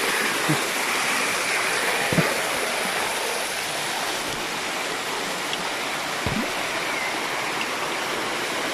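Shallow mountain stream running fast over a rock slab in a steady rushing wash, with a few soft low thumps.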